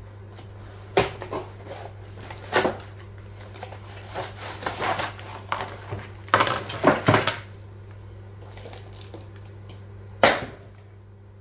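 Cardboard packaging being torn open and handled, with crackling and rustling of cardboard and plastic packing bags in irregular clusters as a linear scale is pulled from its box, and one sharp knock about ten seconds in. A steady low hum runs underneath.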